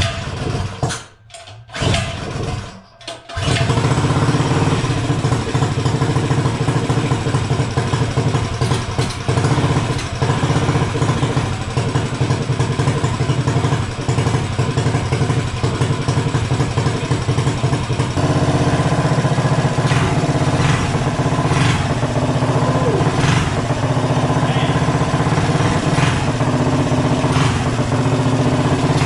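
Predator 212 single-cylinder four-stroke engine on a minibike, fitted with 1.2 ratio rocker arms and a header pipe, pull-started with its recoil cord. A few short pulls come in the first seconds, and it catches about three seconds in. It then runs steadily and loudly.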